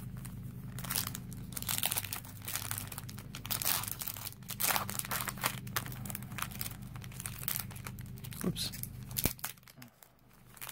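Foil-lined Yu-Gi-Oh booster pack wrapper being torn open and crinkled by hand, in irregular rustles and crackles. There is a single sharp tick about nine seconds in.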